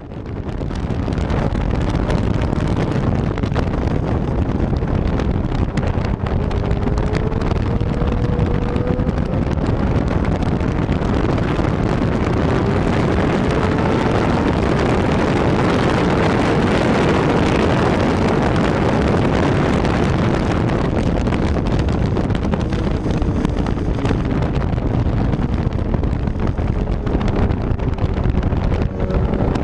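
Yamaha R6 sport bike's inline-four engine running hard on track, heard through heavy wind rush on an onboard camera's microphone. The engine note climbs slowly several times as the bike accelerates.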